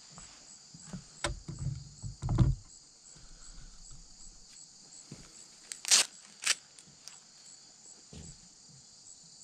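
Steady chirping of crickets, with handling knocks and low thumps about a second or two in and two sharp clicks about six seconds in, from the bow and gear being handled.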